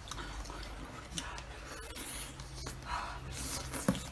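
Quiet mouth sounds of someone eating a stewed goose head: soft chewing and sucking with small scratchy scrapes and clicks, and a sharper click near the end.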